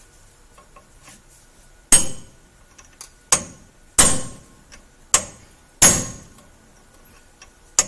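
Hammer blows on a steel chisel wedged at a truck's front ball joint and control arm. Six sharp metal-on-metal strikes, each ringing briefly, come at uneven intervals of about a second, starting about two seconds in. It is the hammering used to knock the old ball joint free.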